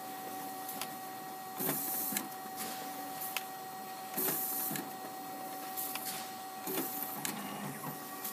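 Kodak 9125c production document scanner running a colour duplex scan, feeding paper. A steady high whine from its transport runs throughout, with a hissing swish every second or two and light clicks.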